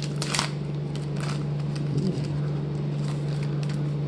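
Trading-card pack wrapper crinkling and cards being handled: scattered short crackles and clicks, over a steady low hum.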